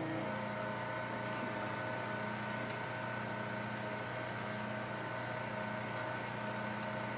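Steady mechanical hum of a generator and an electric sump pump running together, the pump drawing water from a container through a hose.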